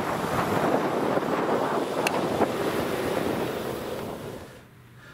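Outdoor street noise: passing traffic with wind on the microphone, fading out about four and a half seconds in.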